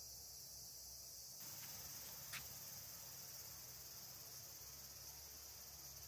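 A faint, steady high-pitched chorus of insects in summer vegetation. One brief chirp stands out about two and a half seconds in.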